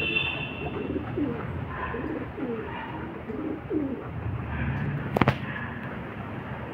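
Domestic pigeons cooing: a run of low, rising-and-falling coos from about one to four seconds in. A single sharp click comes about five seconds in.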